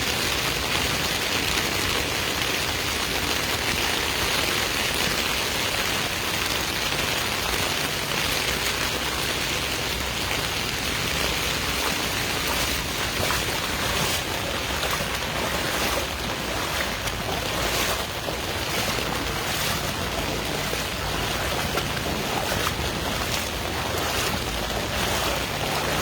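Floodwater rushing steadily through a flooded street, with short knocks scattered through the second half.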